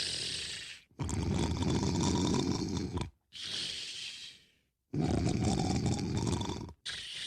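A person snoring: two long, rough, low snores of about two seconds each, with a hissing breath before and after each one.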